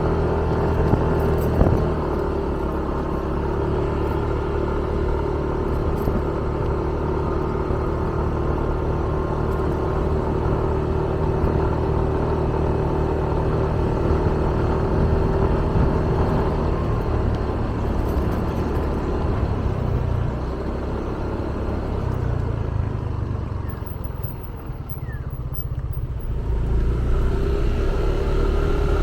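Motorbike engine running while under way, a steady drone that drops away for a couple of seconds near the end, then picks up again.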